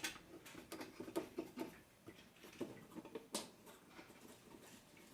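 Thumb screws on a meter cover being tightened by hand: a faint, irregular run of small clicks and scratchy scrapes, with a sharper click at the start and another about three and a half seconds in.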